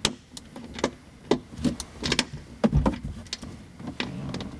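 Sharp metal clicks of an 8mm wrench working the grab-handle bolts loose, coming unevenly about two or three a second, with one duller knock about halfway through.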